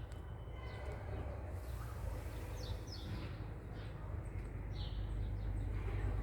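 Short, high, falling bird chirps, a few in quick succession, over a steady low rumble.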